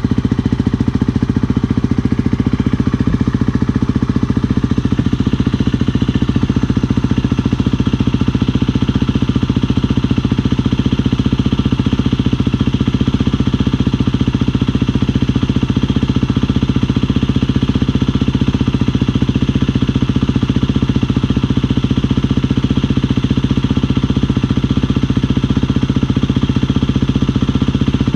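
2017 Husqvarna FE350's single-cylinder four-stroke engine idling steadily through a newly fitted FMF 4.1 titanium/carbon-fibre slip-on exhaust, running at one even pace without revving.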